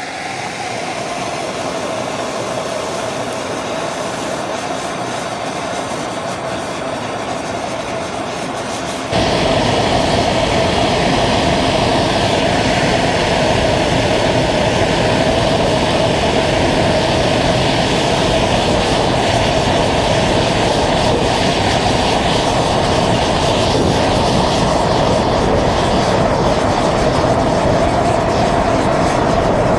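Handheld gas blowtorch flame running with a steady rushing noise, jumping louder about nine seconds in and holding there.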